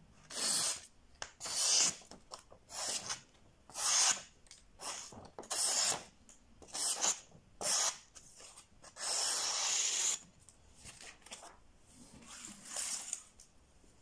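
Blade of a replica Benchmade 535 Bugout folding knife slicing through a sheet of paper: about ten short cutting strokes, with one longer cut about nine seconds in. It is a paper-cutting test of the factory edge, which comes very sharp.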